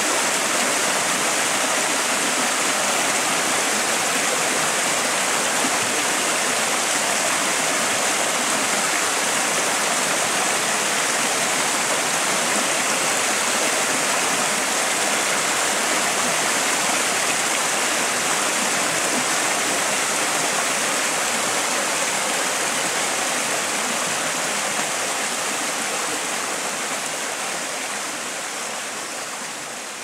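Shallow rocky stream rushing over and between boulders: a steady hiss of running water, fading out near the end.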